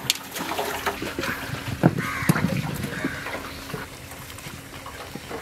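Crows cawing a few times in short calls, over water splashing and trickling with scattered knocks.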